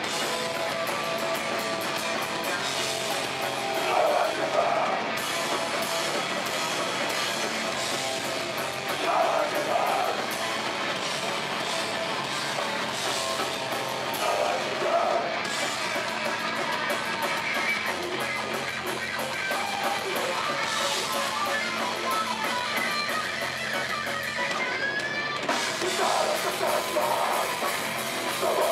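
Live hardcore punk/metalcore band playing: distorted electric guitar and bass over a Yamaha drum kit, with vocals coming in every few seconds.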